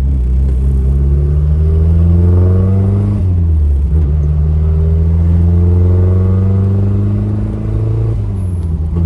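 Turbocharged Mazda Miata accelerating hard. The engine note climbs in pitch, drops at a gear change about three seconds in, climbs again, and drops at a second shift near the end.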